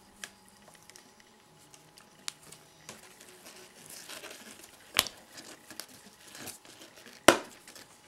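Nylon paracord rustling and rasping as a millipede-weave paracord bracelet is pulled loose and unravelled by hand, with two sharp clicks, one about five seconds in and a louder one near the end.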